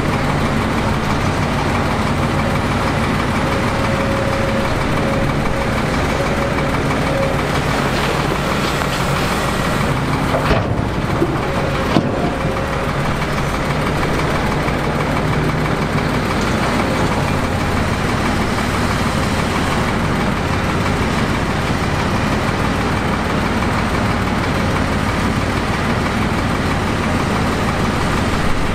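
Heavy diesel engine of earthmoving machinery running steadily, with a few short knocks about ten to twelve seconds in.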